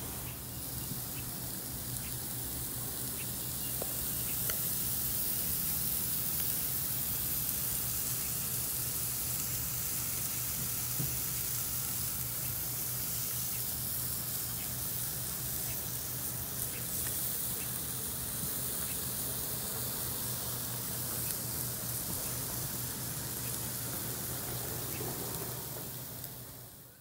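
Fish fillets sizzling on the grate of a cast-iron charcoal grill: a steady hiss with small scattered crackles, fading out near the end.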